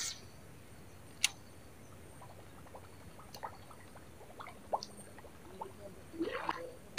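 Small, faint water sounds of a soft frog lure being worked across the surface of still water on a fishing line, over a quiet background. A single sharp click comes about a second in, and there are faint scattered ticks and a brief louder patch near the end.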